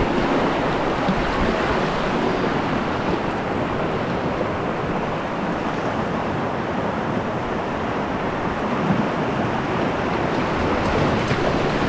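Steady rush of whitewater from a river rapid, an even noise that holds at about the same level throughout.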